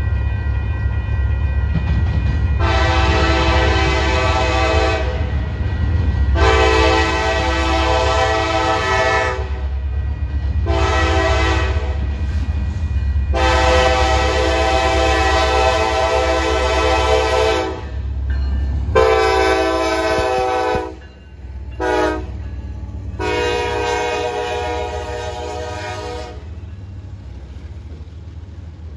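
Five-chime air horn of KCS EMD SD70ACe 4131, sounding like a Nathan K5LA, blowing the grade-crossing signal: long, long, short, long, then two short blasts and a final long one. Under it runs a steady low rumble from the locomotive's diesel engines and the train, which fades toward the end as the train passes.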